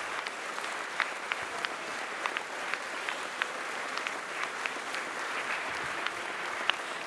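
Audience applauding steadily, with single sharp claps standing out from the crowd.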